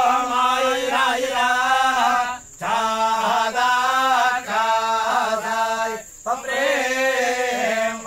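Men chanting Vedic mantras on a nearly steady pitch in long phrases, breaking twice for breath.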